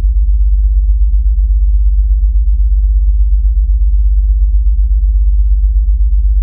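Loud, steady, very low hum with a fast flutter running through it, and nothing else over it.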